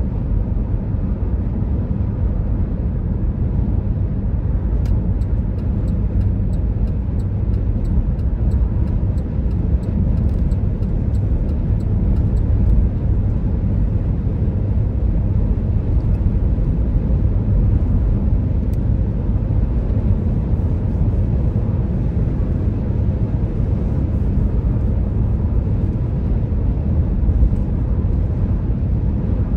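Steady low road and engine rumble of a car driving at highway speed, heard from inside the cabin. A run of faint, evenly spaced ticks sits over it for several seconds not long after it begins.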